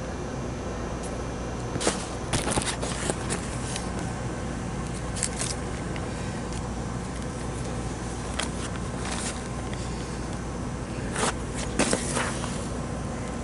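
Handling noise from a camera being picked up and carried: scattered scrapes and crackles as it rubs against clothing and a bag, over a steady background hiss and hum.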